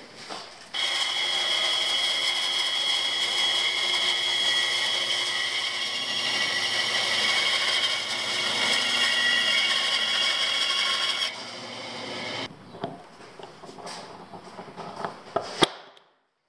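Band saw running steadily as it cuts through a thick Baltic birch plywood board. It stops abruptly about twelve seconds in. A few light taps and one sharp click follow, as drill points are center-punched into the cut plywood blanks.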